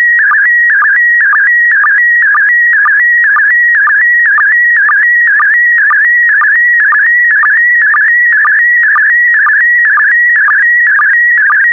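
Slow-scan TV (SSTV) picture signal in PD120 mode: a warbling tone whose pitch shifts with the brightness of the picture being sent. It dips to a lower sync tone at an even rhythm of about twice a second, each dip starting a new pair of image lines.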